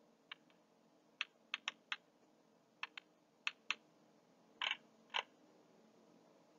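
Faint, irregular tapping of computer keys: about a dozen sharp clicks in small clusters, with two slightly longer ones past the middle.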